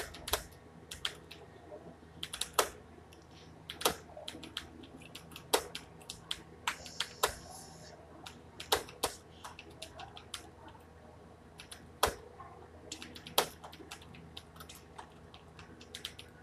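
Computer keyboard typing: uneven keystrokes clicking a few times a second, some struck harder than others.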